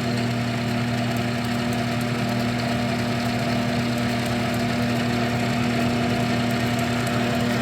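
South Bend 9-inch Model A metal lathe running under its 1/2 horsepower single-phase motor with the power cross feed engaged: a steady hum and gear whir that holds even throughout.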